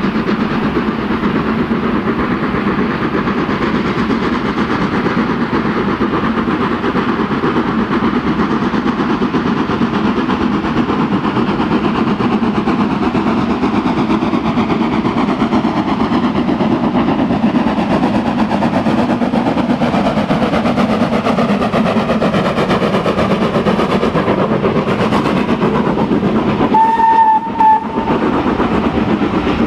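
LSWR S15 4-6-0 steam locomotive No. 506 working past under power, its exhaust and running gear a steady loud sound, with the wheels of its carriages clattering over the rails behind it. Near the end it sounds a short whistle blast, broken once.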